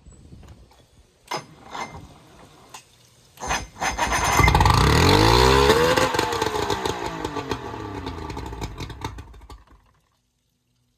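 Old Bayliner boat's engine starting on a recharged battery: a few clicks, then about four seconds in it fires and revs up, its pitch rising and then falling back as it settles. The sound breaks off suddenly near the end.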